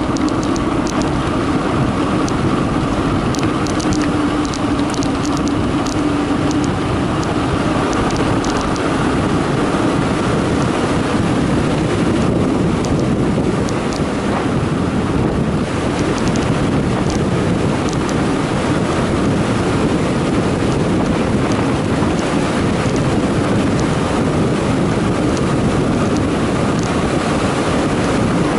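Steady, loud wind noise on the microphone of a camera riding a Carraro Big 827 mountain bike fast downhill, mixed with the hum of its tyres on a concrete road surface. Light clicking rattles come through in the first several seconds.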